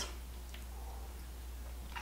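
Quiet room tone with a steady low hum and no distinct event.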